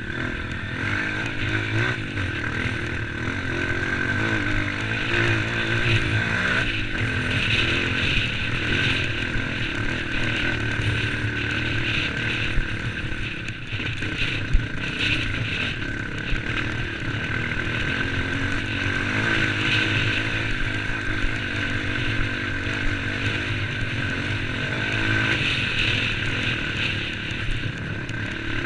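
Engine of an off-road trail vehicle running continuously, its revs rising and falling as it works along the trail, with a couple of sharp knocks about halfway through.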